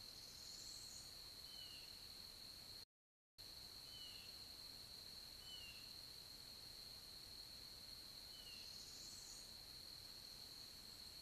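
Faint outdoor ambience from the nest camera's microphone: a steady hiss and a steady high whine, with four short, falling bird chirps scattered through. The sound drops out completely for about half a second around three seconds in.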